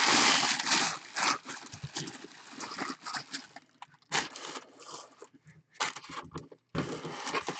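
Cardboard box and packaging being handled and opened by hand: uneven rustling, scraping and sliding, loudest in the first second, with scattered knocks and scrapes after.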